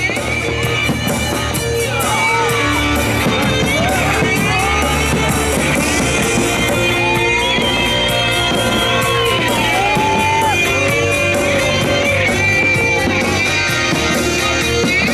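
Loud amplified music from stage loudspeakers: a singer holding long, gliding notes over steady bass, with a crowd shouting faintly underneath.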